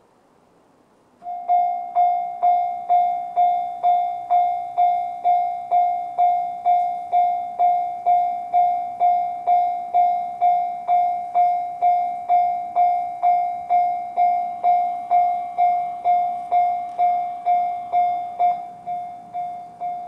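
Japanese railway level-crossing electronic alarm bell with the JR standard tone, warning of an approaching train. It starts about a second in and rings steadily at about two strikes a second. The ringing becomes noticeably quieter about a second and a half before the end.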